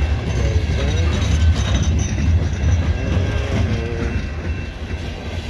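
Loaded CSX coal hopper cars rolling past close by: a heavy, steady rumble of steel wheels on rail with rattle and clatter from the cars, easing a little near the end.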